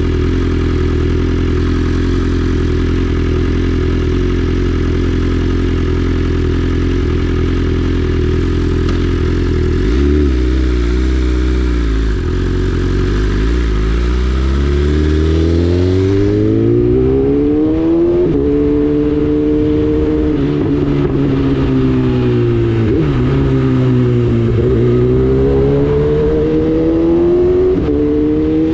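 BMW S1000RR inline-four engine through a full Akrapovic exhaust, idling steadily at first. About ten seconds in, the engine speed climbs slowly over several seconds and holds. It then dips and climbs again near the end.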